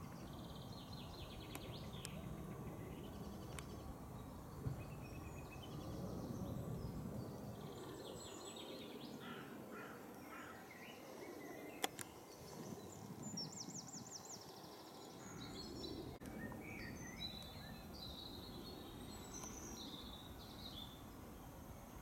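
Several wild birds singing and chirping, in short trills and phrases, over a steady low background rumble, with one sharp click about halfway through.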